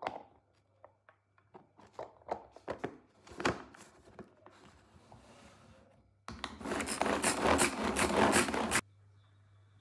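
Manual hand-powered food chopper: its plastic blade lid clicks and scrapes as it is fitted onto the bowl, then a loud rapid rattling as the blades are spun through chopped apple for about two and a half seconds, cutting off suddenly.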